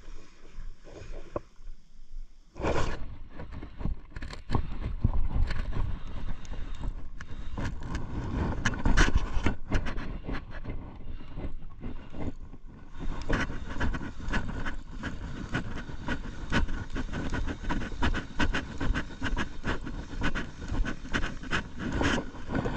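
Spinning reel being cranked on a slow retrieve: a dense, scraping whir of the reel's gears and line with fast small ticks, starting suddenly about two and a half seconds in and easing briefly around halfway.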